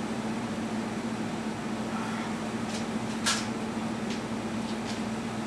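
Steady background hum with one low tone, over a constant hiss. A few faint ticks and rustles sit on top, with one sharper rustle or click a little over three seconds in.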